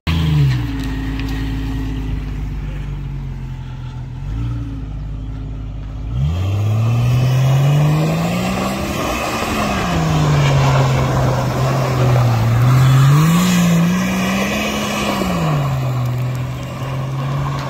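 Jeep Cherokee XJ engine running steadily, then about six seconds in revving up and down again and again as the Jeep spins circles on loose dirt, with a hiss of tyres throwing dirt.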